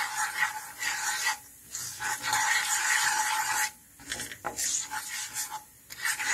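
Wooden spatula scraping and rubbing across a nonstick kadai, stirring cumin seeds and chilli powder through hot oil, in repeated strokes with short pauses between them.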